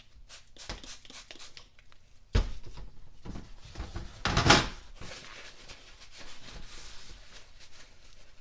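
Parts and tools handled on a workbench. There is a sharp knock about two and a half seconds in, then a short, louder rasp about two seconds later, with light rubbing sounds in between.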